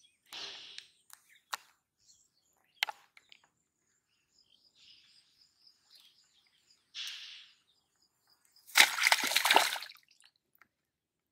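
A hooked fish splashing and thrashing as it is yanked out of shallow muddy canal water, a loud sloshing burst lasting about a second near the end. A few smaller splashes come from the water around the float before it.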